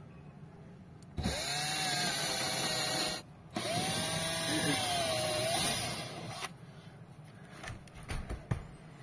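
Cordless drill-driver running in two bursts of about two and three seconds, its motor pitch climbing as each starts, while driving screws to fix a metal bracket to a wall. A few light clicks follow near the end.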